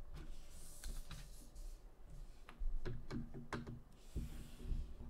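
Scattered light clicks and taps, with two short bursts of rustling, one about a second in and one near the end.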